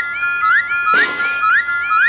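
Electronic railroad crossing alarm ringing in a repeating pattern of high tones, about two and a half strokes a second. A brief whoosh comes about halfway through.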